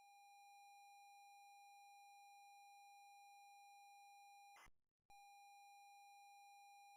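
Very faint steady electronic tone, like a test beep, broken by a brief crackle and dropout just before five seconds in, then resuming.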